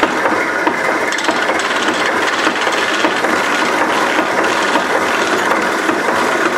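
Skew chisel cutting a spinning wooden spindle blank on a foot-powered lathe: a steady shaving noise with small ticks through it as the blank is trued round and smooth.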